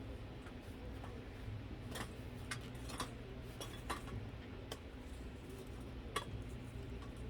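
Scattered light clicks and clinks of tableware, about six in all and the sharpest near the middle and about six seconds in, over a steady low hum.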